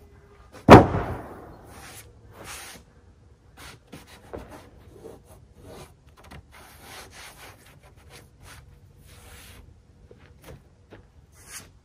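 A heavy, freshly sawn American chestnut slab lands flat on a stack of slabs with one loud wooden impact under a second in. Quieter rubbing and light knocks follow as gloved hands slide over the wood.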